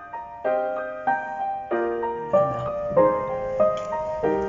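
Background music: a slow piano tune, a new note or chord struck about every half second or so and left to ring.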